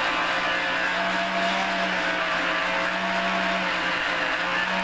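Small electric motor and gear drive of a vintage corded remote-control toy tractor whirring steadily as it drives in reverse.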